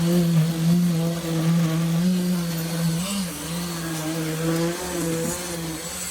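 A machine's engine running steadily with a low, even hum. Its pitch wavers slightly and briefly rises about three seconds in.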